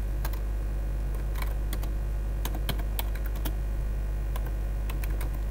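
Typing on a computer keyboard: a run of irregular keystroke clicks over a steady low electrical hum.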